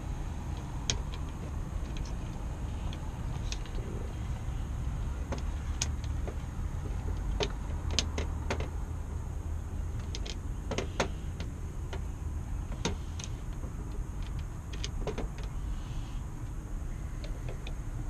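Small sharp metal clicks and taps at irregular intervals as the internal parts of a Sargent mortise lock body are handled and fitted back into the case, over a steady low rumble.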